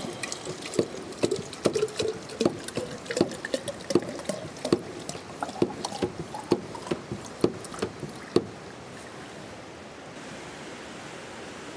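A small hand-operated plunger water pump being worked up and down, clacking about twice a second with a faint squeak. The strokes stop about eight seconds in, leaving a steady hiss.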